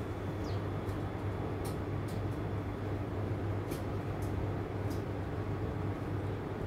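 Steady low mechanical hum of outdoor ambience, with a few faint sharp ticks and a brief high falling chirp about half a second in.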